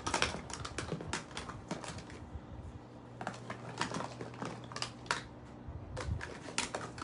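Irregular light clicks and crackles right at the microphone, like handling noise, in two spells: one over the first two seconds and another from about three to five seconds in.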